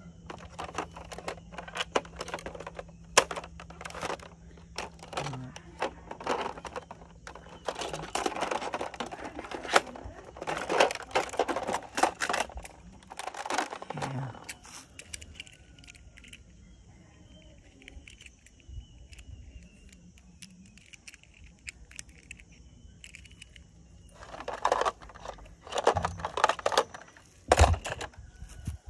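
Hard plastic toy fire truck being handled: clicks, knocks and rattles as its panels and compartment are opened and small toy cars are set on its plastic deck. Dense clattering comes about a third of the way in and again near the end, with quieter stretches of scattered clicks between.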